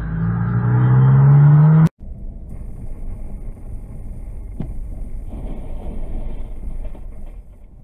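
Vehicle noise heard from inside a car on the road: a loud low hum with rising tones, which cuts off abruptly about two seconds in. Quieter steady road noise follows, with a single sharp click a little past halfway.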